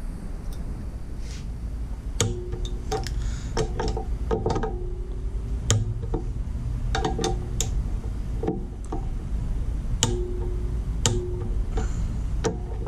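Irregular clicks and metal clinks from a hand ratchet and wrench being worked on an oil pump bolt, with a few short metallic rings and a low steady hum underneath.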